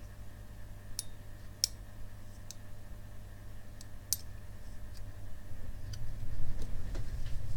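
Opened laptop hard drive with a bent head arm, humming steadily with a faint high tone while a handful of sharp, irregular clicks sound; the heads are binding on the platter, a sign of a failed, impact-damaged drive. A low rumble grows near the end.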